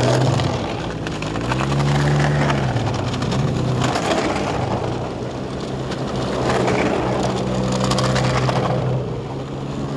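Snowmobile engines passing one after another, each swelling in loudness and fading as it goes by, with the engine note rising and falling.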